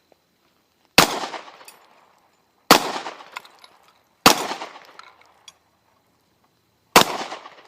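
Four gunshots, unevenly spaced, the last after a longer pause. Each is a sharp crack followed by about a second of trailing echo.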